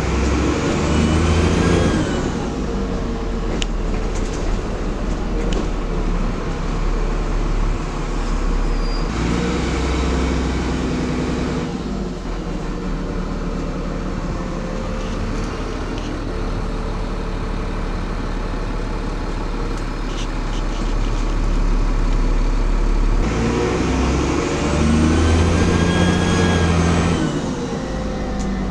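Dennis Trident double-decker bus's diesel engine heard from on board, pulling with a high turbocharger whistle that rises and falls, once at the start and again about 23 seconds in. In between, the engine runs along steadily with a few light rattles.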